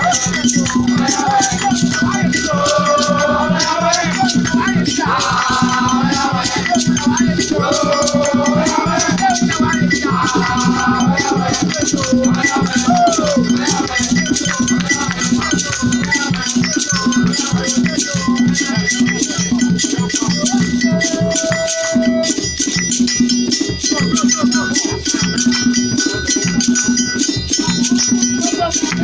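Live band music: several voices singing over a steady beat of shaken rattles and percussion. The singing falls away about halfway through while the rattles and beat keep going.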